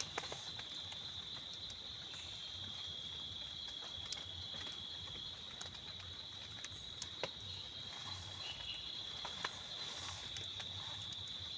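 Insects chirring in one steady high-pitched drone, with a few scattered sharp taps.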